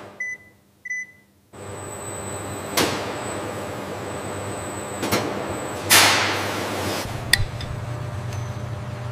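Two short electronic beeps from a touchscreen control panel, then a steady hum of processing machinery with a few brief swishes, the loudest about six seconds in, and a sharp click a little after seven seconds. A deeper hum joins near the end.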